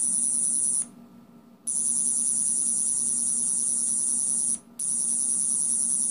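Tennant-era Doctor Who sonic screwdriver sound effect played as an 8-bit loop by an ATtiny85 chip through a tiny earbud speaker: a high, steady buzzing whine. It plays in three bursts, cutting out about a second in, then running about three seconds, breaking briefly, and starting again near the end.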